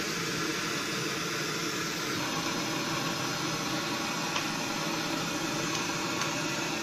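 Steady hissing from a stove where oil for deep-frying is heating in an aluminium kadai over a gas burner, a test drop of batter frying in it: the oil has reached frying temperature.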